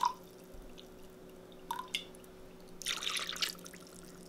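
Water trickling into a jar, ending just as the sound begins, then a couple of light drips. About three seconds in, the water is poured out of the jar into a mixing bowl in a brief splash lasting about half a second.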